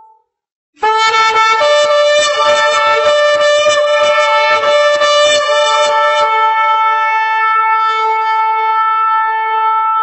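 A shofar is sounded in one long blast starting about a second in. For its first five seconds or so the blast is rough and pulsing, with a second, higher note over it. It then settles into one steady held note that stops abruptly at the end.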